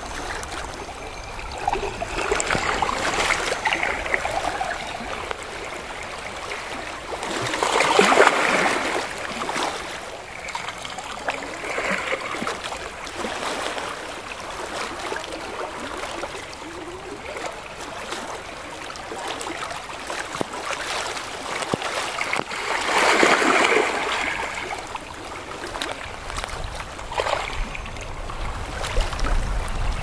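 Gentle sea waves lapping and splashing among shoreline rocks, a steady wash that swells and ebbs irregularly. The loudest surges come about eight seconds in and again around twenty-three seconds.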